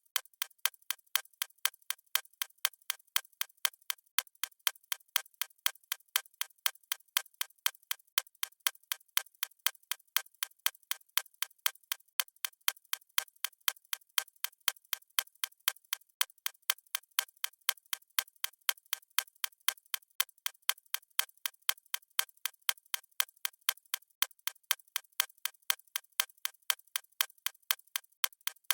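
Clock-ticking sound effect of a countdown timer: a steady run of sharp, evenly spaced ticks.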